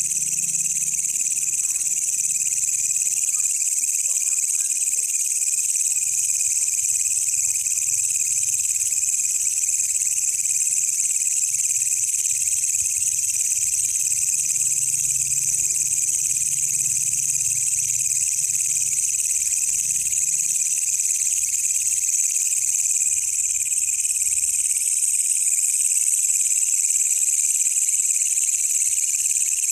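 A wild walang kecek, a bush cricket, stridulating in one continuous, steady, high-pitched trill with no pauses; its pitch lifts slightly near the end.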